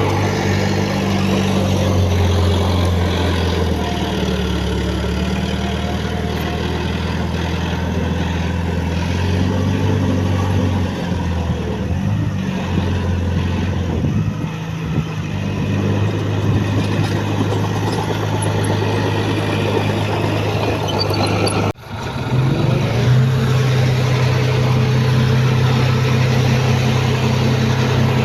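Diesel engines of heavy earthmoving machinery running, the engine note rising and falling with load. A sudden brief break comes about three-quarters of the way through, after which an engine holds a steady pitch.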